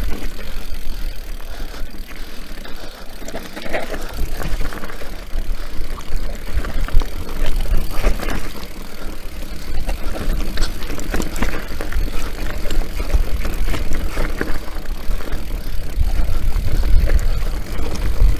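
Orbea Rallon enduro mountain bike descending rocky singletrack: tyres rolling over stones and gravel, with frequent knocks and rattles from the chain and suspension over the rough ground. Wind rumbles on the handlebar-mounted camera's microphone, heavier near the end.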